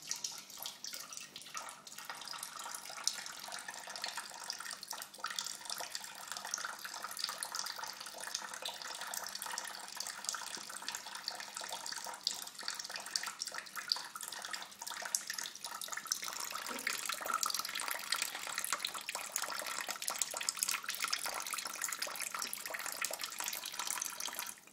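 A thin stream of water running steadily from a kitchen mixer tap and splashing into the sink, with small irregular splashes as a cat drinks from the stream.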